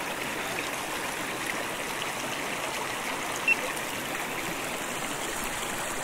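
Mountain trout stream running steadily, with one brief high tick about halfway through.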